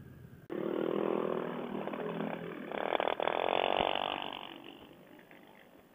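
Small GY6-engined Honda Ruckus scooters running close by: engine sound starts abruptly about half a second in, one engine revs up and back down around three seconds in, and the sound fades away over the last couple of seconds.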